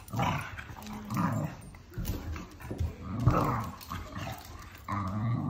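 Staffordshire bull terrier growling in repeated short bursts while play-wrestling with a cat.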